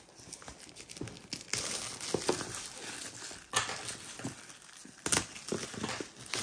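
Cellophane shrink-wrap being peeled and torn off a cardboard jigsaw puzzle box, crinkling irregularly with a few sharper crackles, the loudest about three and a half and five seconds in.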